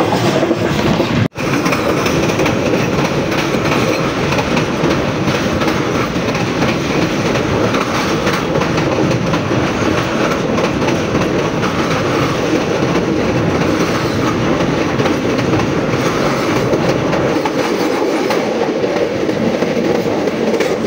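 Pakistan Railways express passenger train running at speed, heard from on board: a steady rumble and clatter of wheels on the rails. There is a momentary dropout just over a second in.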